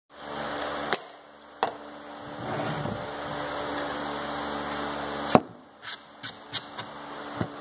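Thin wooden trim strips knocking against the door panel and workbench as they are handled and set in place: a series of sharp wooden knocks, the loudest about five seconds in, with a quicker run of lighter taps near the end, over a steady low hum.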